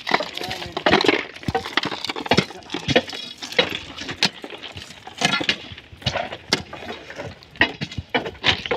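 Crushed-stone railway ballast clinking and clattering in irregular sharp knocks as it is raked with a wire ballast fork and scooped into iron pans during manual ballast cleaning.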